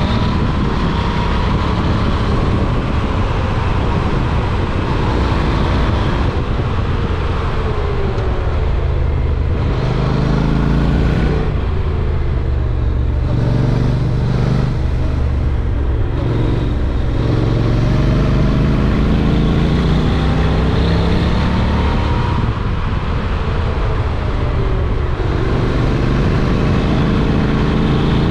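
Honda NC750X parallel-twin engine running at road speed under heavy wind noise. The engine note climbs and drops several times in the middle stretch as it accelerates and changes gear.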